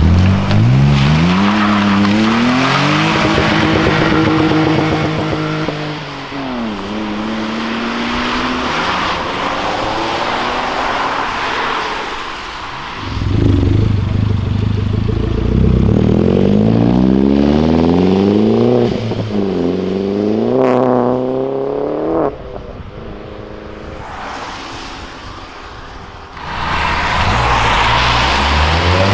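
Three cars in turn accelerating away on a wet road, each engine revving up and dropping at gear changes. First a BMW E46 3 Series coupé, then a Mini with a big rear wing revving high, then a Toyota Corolla AE86 starting to rev up near the end.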